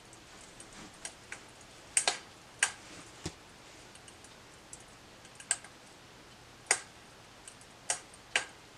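Sparse, irregular light clicks and taps from handling a book as it is picked up and opened, the loudest pair about two seconds in.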